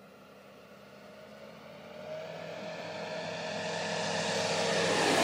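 Light aircraft's propeller engine droning as the plane approaches low, growing steadily louder.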